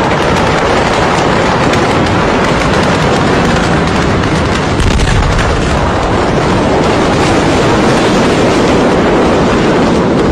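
Loud, unbroken roar and rumble of a massive explosion, deepening about five seconds in.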